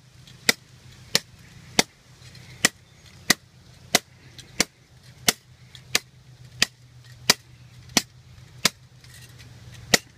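Zippo 4-in-1 Woodsman hatchet chopping into a downed tree, a steady run of sharp blows about three every two seconds.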